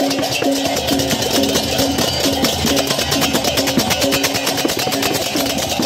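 Balinese gamelan procession music, likely baleganjur: a fast, dense run of cymbal clashes over a short repeating melody of pitched metal notes, played steadily throughout.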